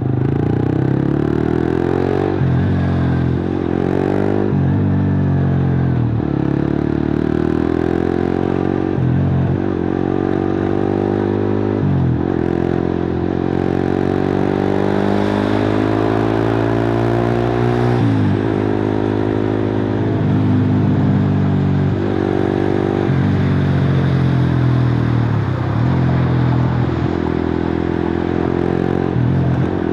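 Suzuki GSX-R150's single-cylinder engine running loud through a cut-open exhaust while being ridden. Its pitch climbs under acceleration and drops sharply at each gear change, repeatedly, with one long climb in the middle.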